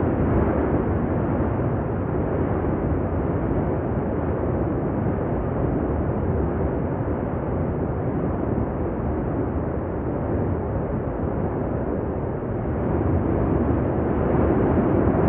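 La Palma volcano erupting: a steady, dense roar and rumble from the lava fountain, a little louder near the end.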